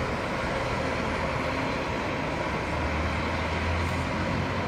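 Steady rumble of road vehicles with a low engine hum, the hum swelling briefly about three seconds in.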